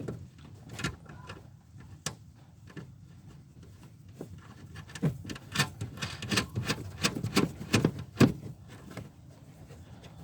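Irregular clicks, knocks and rubbing of hands working at car body parts and fasteners, with a run of sharper clicks in the second half.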